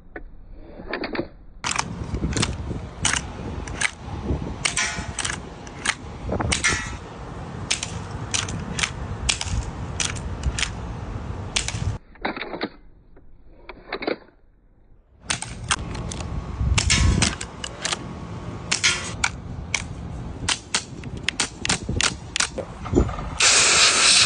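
Airsoft guns firing irregular strings of shots, some in quick runs. The shots come in two stretches with a pause of about three seconds between them, and a loud hissing rush begins near the end.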